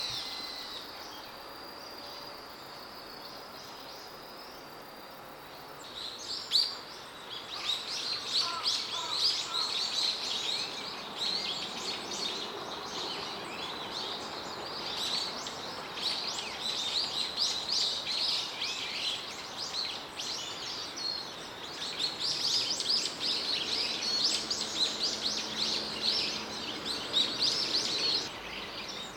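A small songbird singing a long, unbroken stream of rapid high chirps and trills, starting about six seconds in.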